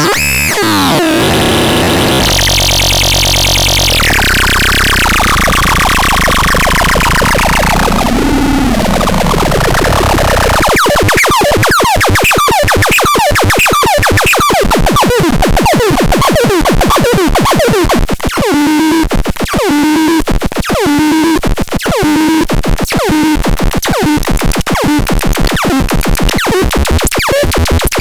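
Electronic sound effects from a DESON T3: harsh synthetic buzzing tones and a long falling sweep, then, from about eleven seconds in, a rapid train of short falling chirps.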